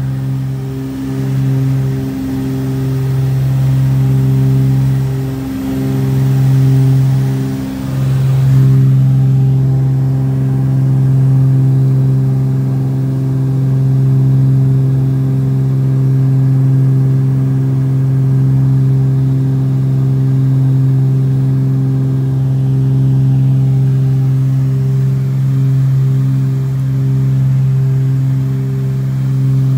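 Cabin drone of a Cessna 402C's twin turbocharged Continental six-cylinder piston engines and propellers in climbing flight: a loud, steady low hum. The hum wavers in the first several seconds, then settles to an even tone.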